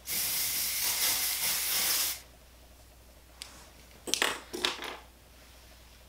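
Aerosol can of texturizing hair spray hissing in one continuous spray of about two seconds. A few short clicks and rustles follow around four seconds in.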